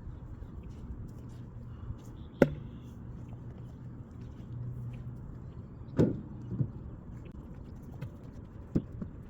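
Four separate hard knocks over a low steady hum, the sound of ash firewood pieces being handled and knocking against each other.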